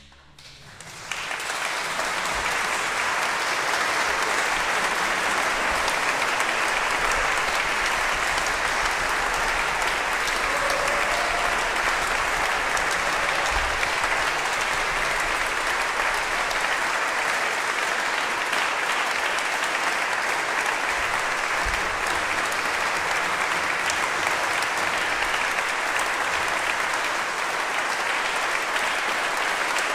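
Concert audience applauding, breaking out about a second after the last note of a Baroque violin concerto has died away and then continuing steadily.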